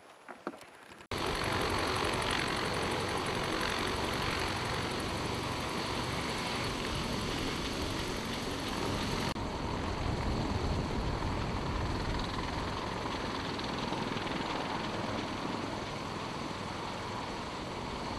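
Military helicopter turbine engines running on a flight line: a steady, loud rush with a high whine that starts abruptly about a second in and softens slightly about nine seconds in. The first second holds only a few light clicks.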